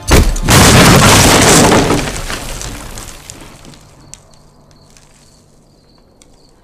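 An explosion with crashing, shattering debris that blows apart a wooden shack. It bursts in suddenly just after the start, stays loud for about two seconds, then dies away over several seconds into a few scattered ticks of falling debris.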